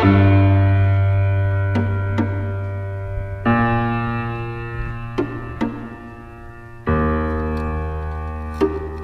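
Background music of slow, held chords that fade away, with a new chord struck about every three and a half seconds and a few light percussive ticks between them.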